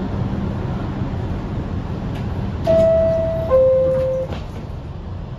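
R62A subway car's two-tone door chime, a higher note then a lower one about halfway through, signalling that the doors are closing, over the steady low rumble of the train.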